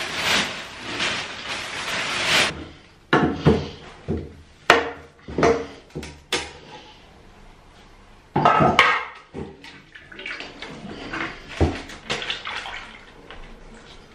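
Plastic bin bag rustling loudly as it is spread out, then a run of sharp metallic knocks and clinks as a paint tin's lid is prised off and handled, with paint being poured from the tin near the end.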